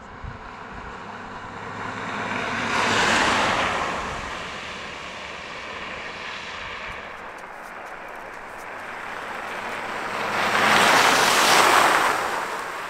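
A 4x4 off-roader driving through mud and puddles on a dirt track, its tyres hissing and splashing. The rushing noise swells twice, about three seconds in and again near the end, as the vehicle passes close.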